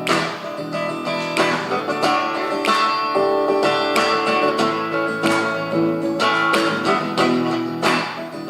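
Acoustic guitar strummed in an instrumental break between sung verses, chords struck at a steady rhythm.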